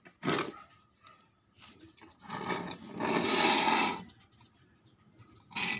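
Metal power window regulator rail and cables scraping and rubbing on a tiled floor as they are handled, in several short bursts; the longest and loudest comes about three seconds in.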